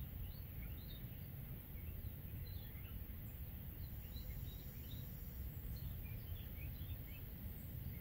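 Wild birds singing outdoors: a steady run of short, high chirps and twitters, several every second, over a constant low rumble.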